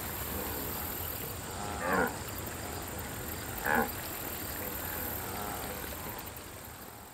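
Two short grunt-like calls from cartoon wildebeest, one about two seconds in and another just under two seconds later, over a steady background ambience that fades near the end.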